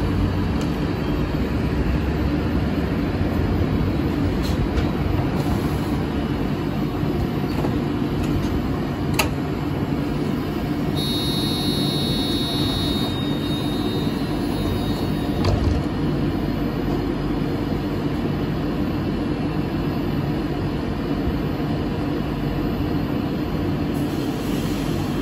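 Nancy's rubber-tyred guided tram standing at a stop, its onboard equipment running with a steady hum. There is a single click about nine seconds in and a brief high electronic tone about halfway through.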